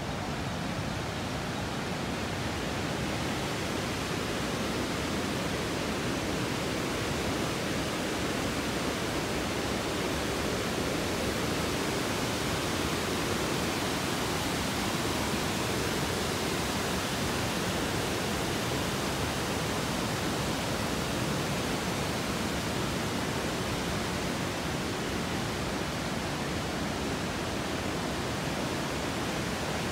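Steady, even rush of the Tambre river's flowing water.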